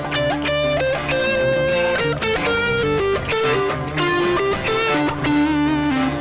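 Electric guitar (a Fender Telecaster) playing single-note lead lines with string bends and vibrato over a layered backing of guitar and bass parts played back from a Boss RC-3 loop pedal, with no drums.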